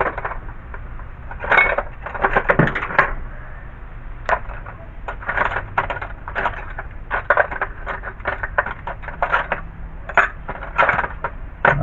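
Metal wrenches clinking and clattering against each other in the air cleaner housing used as a tool tray, in a string of short irregular rattles as they are handled and sorted through.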